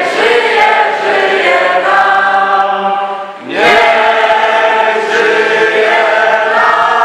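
A group of young people singing a birthday song together, unaccompanied, with a short break about three and a half seconds in before the singing picks up again loudly.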